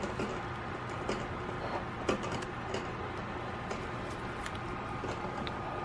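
Faint, irregular small clicks of a guinea pig licking and chewing soft recovery food from a feeding syringe, over a steady background hum.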